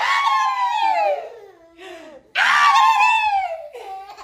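A small child crying: two long, high-pitched wails, each about a second and a half, sliding down in pitch at the end, with a short catch of breath between them.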